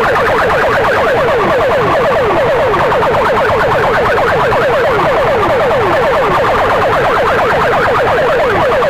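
Electronic siren-style effect blasted at full volume through competing DJ sound-box loudspeaker stacks: rapid, overlapping falling swoops, several a second, over a distorted low rumble.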